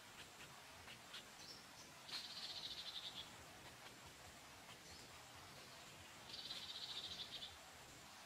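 Two high, rapidly pulsed trilling calls from a small animal. Each lasts about a second, the second coming about four seconds after the first, over faint scattered ticks.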